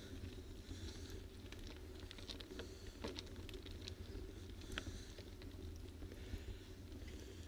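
Muffled road noise of a bicycle rolling over rough, cracked asphalt: a low steady rumble with scattered small clicks and rattles, the sharpest about three seconds in and again near five seconds.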